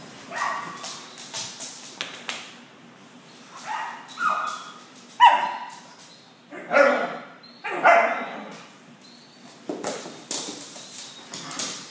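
Two Salukis playing together, giving a string of short barks and yips, loudest near the middle, with a few sharp thumps from their bodies on the couch.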